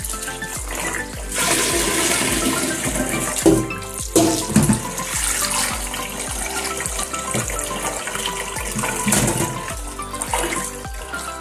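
Kitchen tap running into a stainless steel pot of beef tripe, the water splashing and sloshing as the tripe is rinsed by hand, getting louder about a second in. Background music with a steady beat plays underneath.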